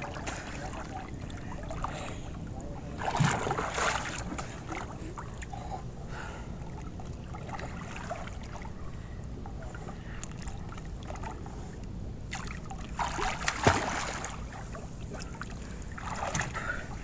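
Sea water sloshing and splashing around a swimmer treading water beside a small wooden boat, over a steady rumble of wind and water on the microphone, with louder splashes about three seconds in and again near thirteen seconds.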